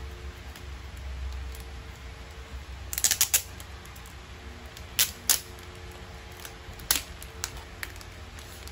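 Clear plastic sleeve and paper card crinkling as they are handled, with a quick cluster of sharp crackles about three seconds in and single crackles twice near the middle, over a steady low hum.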